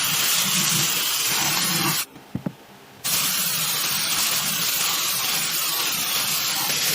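A woodworking power tool running with a steady, hissing noise. It stops about two seconds in, falls quiet for about a second apart from a brief low sound, then runs again.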